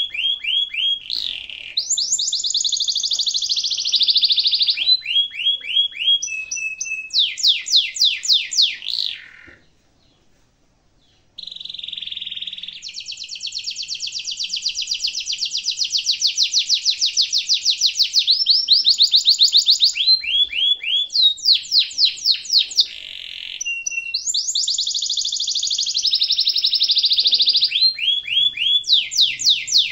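Domestic canary singing: fast rolling trills and quickly repeated high phrases in long rolls. The song breaks off for about two seconds about a third of the way in, then resumes with a long, even roll.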